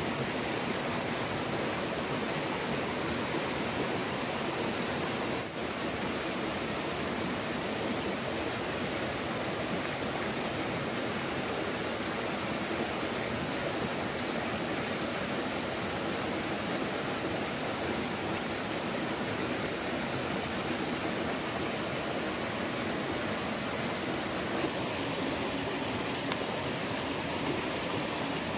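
Rocky mountain stream rushing over stones and small cascades: a steady, even rush of water.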